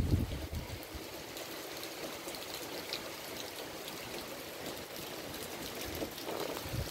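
Steady rain falling on trees and foliage: an even hiss with scattered drop ticks. A low rumble of wind on the microphone dies away in the first half second.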